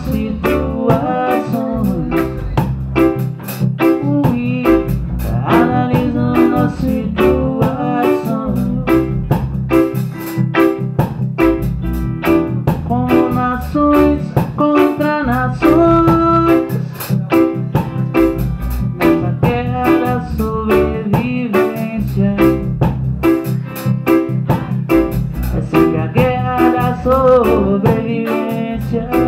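Live band playing an instrumental passage between sung verses: electric guitar, keyboard and drum kit keep a steady, even beat with a strong low end.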